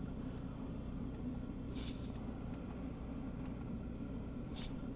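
Steady low drone of a Hcalory 5 kW diesel air heater running just outside the tent, with two brief rustling sounds, one about two seconds in and one near the end.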